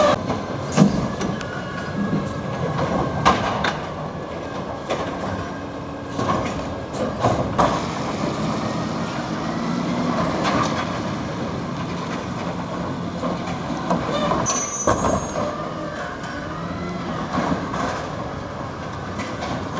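A 2011 Peterbilt 320 garbage truck with a Wayne Curbtender side-loader body running and working, its engine and hydraulics making a steady, loud noise broken by sharp clanks and knocks, with a brief high squeal about three-quarters of the way through.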